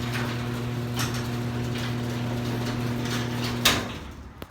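A 2002 Genie Pro screw-drive garage door opener runs as it opens the door: a steady motor hum with a light click about once a second, pretty noisy. Near the end there is a sharp clack and the motor stops, as the door reaches its open position.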